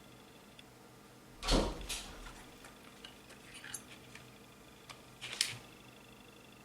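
Handling noise of hard objects on a work surface: a knock with a low thump about one and a half seconds in, a few light clicks, and another sharp knock near the end, over faint steady high-pitched tones.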